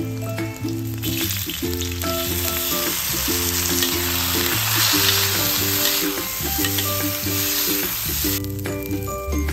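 Rice sizzling as it hits hot sesame oil in a wok and is stirred with a metal spatula. The sizzle builds about a second in, is loudest midway and dies down near the end.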